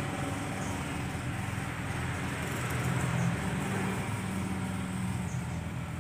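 Steady low rumble with hiss, constant background noise with no distinct events.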